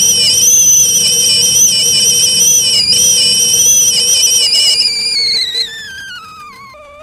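Stovetop kettle whistling loudly at the boil, a shrill, slightly wavering tone. About five seconds in, the pitch slides down and the whistle fades to a quieter, lower, wavering tone.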